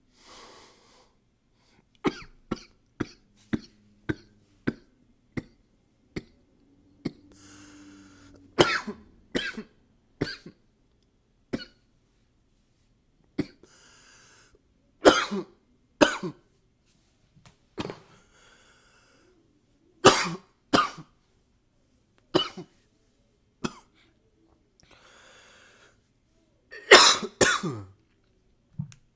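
A man coughing close to a microphone, in bouts: a quick run of about seven short coughs, then single coughs and pairs, with breaths drawn in between. A harder cluster of coughs comes near the end.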